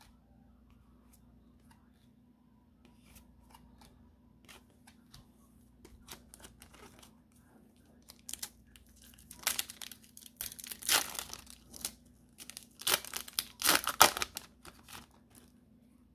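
Foil wrapper of a Pokémon card booster pack crinkled and torn open by hand: light crinkling at first, then two bouts of loud tearing in the second half.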